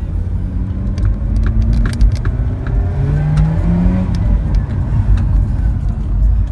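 Mazda RX-8's 13B twin-rotor rotary engine pulling the car along, its pitch climbing as it accelerates about halfway through. Short sharp clicks and rattles sound throughout.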